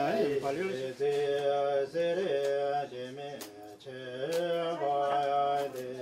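A man chanting in long held notes, phrase after phrase, with short pauses between the phrases.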